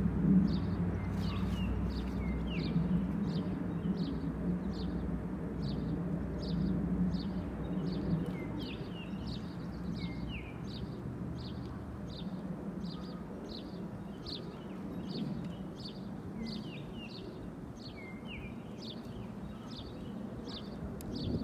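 A bird calling over and over in short high chirps, about three every two seconds, some of them sliding down in pitch. Under it is a low steady rumble that is strongest at first and fades about twelve seconds in.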